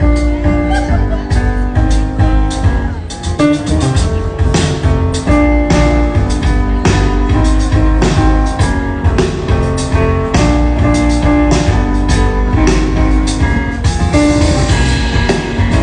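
Jazz piano trio playing: piano chords and runs over a deep, steady bass line and busy drum kit.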